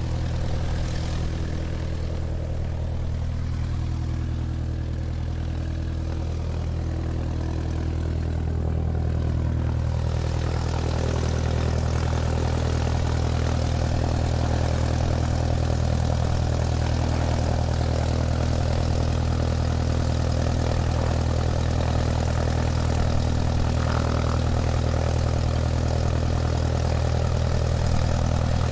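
Airplane taxiing, its engine running steadily at low power with a deep hum. About ten seconds in, a fuller rushing noise joins and it grows a little louder.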